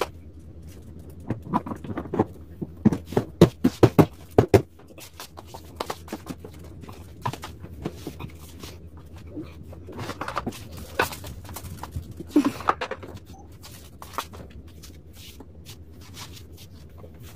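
A quick run of sharp knocks and clatter in the first few seconds, then scattered lighter clicks: the plastic and metal parts of a massage chair being handled and fitted during assembly.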